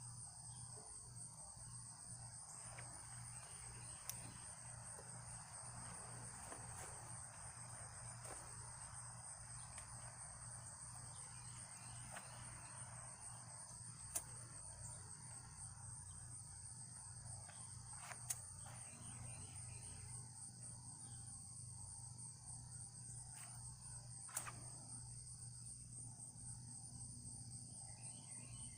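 Crickets chirping in a steady, high, finely pulsing trill, with a low hum underneath and a few faint sharp clicks.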